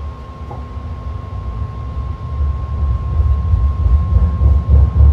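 Inside a BART Fleet of the Future rail car as the train pulls out of the station: a low rumble of wheels and traction motors that grows steadily louder as the train picks up speed, with a thin steady high tone throughout.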